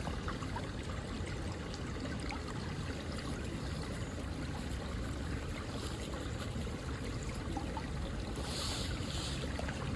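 Steady outdoor ambience: wind buffeting the microphone as a low rumble under an even hiss. The hiss swells briefly near the end.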